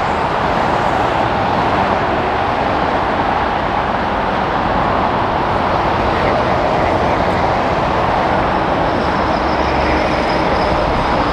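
Boeing 747 freighter's jet engines running at taxi power as it rolls past: a loud, steady rush, with a faint high turbine whine coming in near the end.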